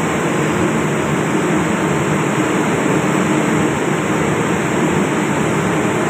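Steady, even drone of running ship's machinery, with no separate knocks or clicks from the hand-worked press.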